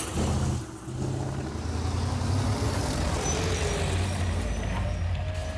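Kamaz rally truck's diesel engine running hard, a steady low drone that dips briefly under a second in.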